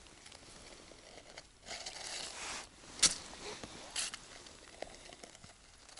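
Ice scoop scraping slush and snow out of an ice-fishing hole: soft scratchy scooping, with two short sharp clicks about three and four seconds in.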